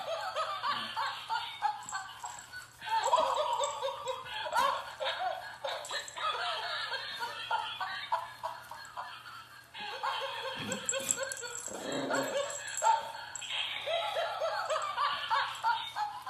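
Laughter playing from a motorized stuffed sock monkey toy, thin and tinny as if through a small speaker. It comes in long runs that cut off and start again abruptly several times.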